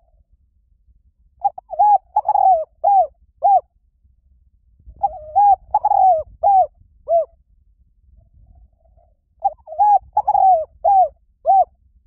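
Spotted dove cooing: three repeated phrases of about five coos each, one roughly every four seconds.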